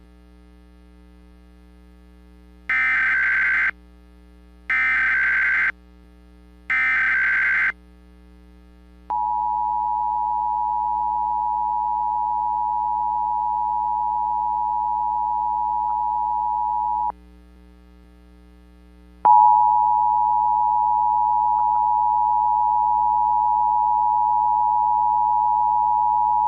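Emergency Alert System tones. Three one-second bursts of SAME header data (a harsh, buzzy digital warble) come about three, five and seven seconds in. Then the steady EAS attention tone sounds for about eight seconds, stops, and starts again two seconds later for another eight seconds, all over a faint steady hum.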